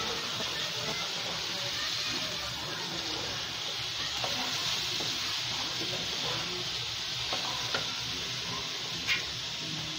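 Raw polao rice sizzling in hot ghee in a nonstick pan while a wooden spatula stirs and turns it: a steady frying hiss with scattered light scrapes and taps of the spatula, one sharper knock near the end.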